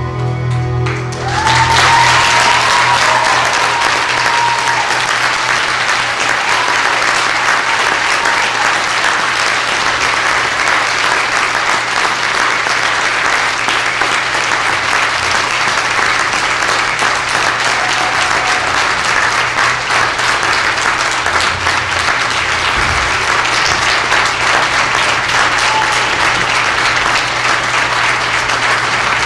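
Music ends in the first second, then a large audience applauds steadily.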